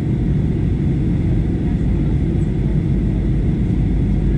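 Steady cabin noise inside a Boeing 737-800 in flight: a low, even rumble of airflow and its CFM56 turbofan engines.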